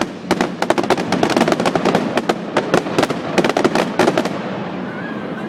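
Fireworks exploding in a fast volley of sharp cracks and pops, densest for the first four seconds, then thinning to a few scattered bangs.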